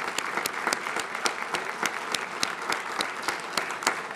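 Audience applauding, with sharper, louder claps close by standing out at about three a second.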